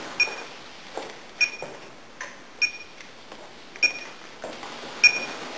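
A TinyLoc dog-tracking device gives a short, high electronic beep about every 1.2 seconds, five beeps in all.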